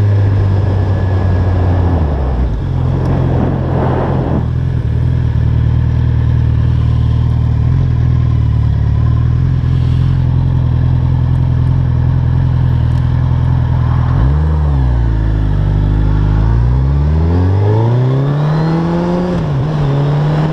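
Motorcycle engine running steadily at cruising speed, with wind and road rush. About two-thirds of the way through, the revs drop as it slows, then climb in a long rise as it accelerates away.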